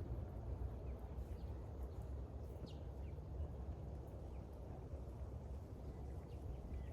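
Steady low outdoor rumble, like wind on the microphone, with a few short, faint high bird chirps.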